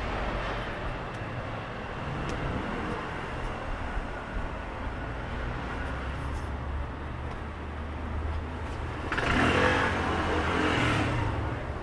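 City street traffic: cars passing with a steady low rumble, then a louder, closer vehicle passing that starts suddenly about nine seconds in and lasts about two seconds.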